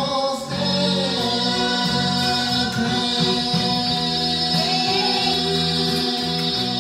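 A man singing an enka song into a karaoke microphone over the karaoke backing track.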